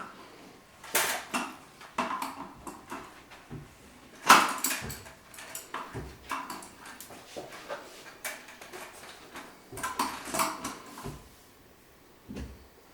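A wrench clinking and knocking against the metal drain fittings of a sink as the drain nut is tightened: irregular sharp clanks with short pauses, the loudest about four seconds in.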